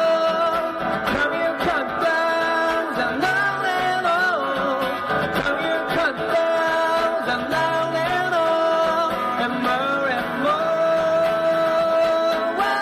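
A pop-rock song with a singer's voice over guitar, the melody holding long notes that bend in pitch.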